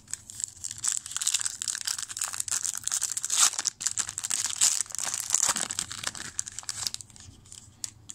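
Trading card pack wrapper being torn open and crumpled by hand: a dense, crackling crinkle that stops about a second before the end, leaving a few light clicks.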